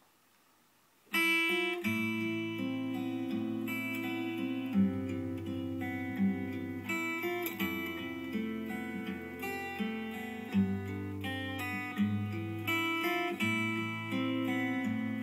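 About a second of near silence, then an instrumental song intro starts: strummed acoustic guitar over a steady bass line, played back through the SonicGear Xanadu X3 speakers.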